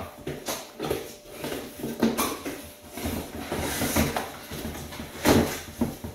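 Large cardboard monitor box being opened by hand: flaps scraping and rustling, with irregular knocks and one louder thump about five seconds in.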